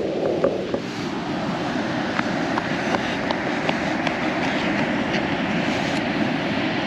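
Steady wash of ocean surf with wind buffeting the microphone, a few faint ticks on top.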